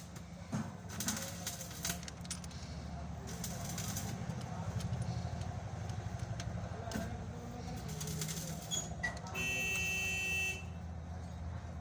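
Mahindra Maxximo two-cylinder diesel engine running steadily, with irregular sharp clicks and knocks over it. A vehicle horn sounds for about a second near the end.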